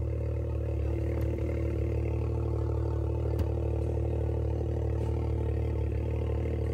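Can-Am Maverick X3 side-by-side engine idling steadily, with one light click about halfway through.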